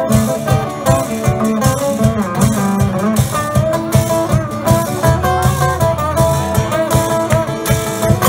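Live blues band playing an instrumental passage: picked acoustic guitars over a steady drum beat.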